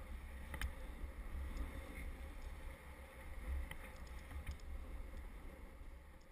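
Low wind rumble buffeting a moving camera's microphone while snowboarding, over the steady hiss of a board sliding on packed snow, with a few faint clicks.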